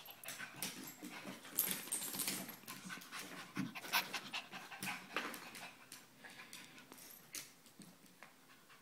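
Small Maltese dog panting excitedly while it jumps about, with quick clicks and taps of its claws on a hardwood floor; the sounds thin out near the end.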